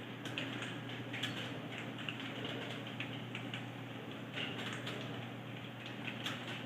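Fast typing on a computer keyboard: a quick, irregular run of key clicks, over a steady low hum.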